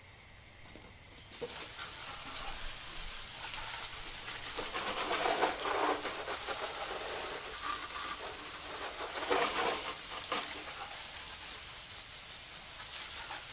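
Compressed air hissing steadily through an air chuck into a plugged tubeless motorcycle tyre as it is inflated. The hiss starts abruptly about a second and a half in and swells briefly a couple of times.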